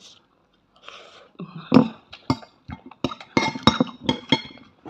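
Metal fork and spoon clinking and scraping against a ceramic plate during a meal, with a dense run of sharp clinks in the second half.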